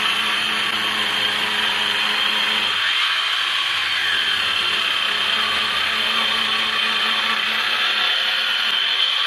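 Handheld electric circular saw cutting lengthwise along a wide wooden plank, the motor's high whine and the blade biting through the wood running steadily.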